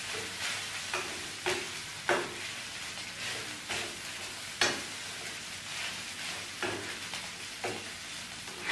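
Metal spoon scraping and knocking against a frying pan as egg fried rice is stirred, in repeated uneven strokes, one or two a second, over a steady sizzle from the pan.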